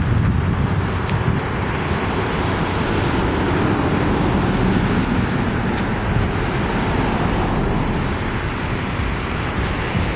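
Steady road traffic noise, a continuous hum of passing cars with no distinct events.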